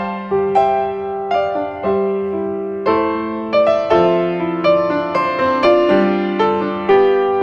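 Background music: a gentle piano tune, its notes struck about twice a second and left to ring.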